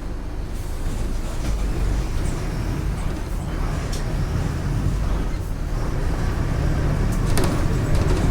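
Mercedes-Benz OF 1519 Bluetec 5 bus's diesel engine running, gradually getting louder as it pulls, with a few short rattles near the end.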